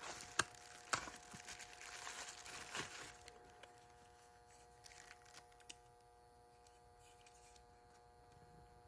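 Packaging being handled: faint crinkling and rustling with a few light clicks over the first three seconds, then only a faint steady hum.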